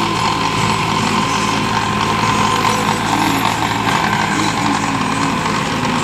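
New Holland 5510 Excel tractor's diesel engine running steadily under load, driving a rear-mounted rotavator whose blades churn soil and crop residue, with a constant high whine over the engine note.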